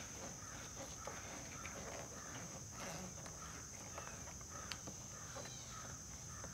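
Faint scraping and light clicks of a small eyeglass screwdriver prying under a rubber motorcycle handlebar grip to free it from the bar, over a steady high-pitched drone of crickets.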